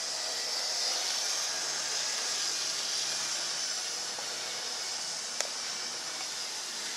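HO-scale model train running on its track: a steady hissing rolling noise with a faint low hum, and a single sharp click about five and a half seconds in.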